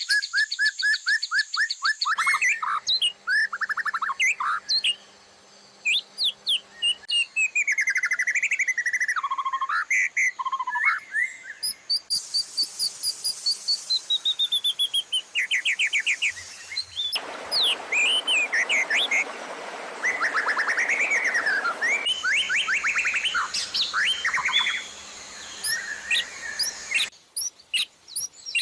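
Songbird recordings for a white-rumped shama (murai batu) training track, spliced back to back. The song switches abruptly to a different bird's phrases about every five seconds, between rapid chip series, sweeping whistles and trills.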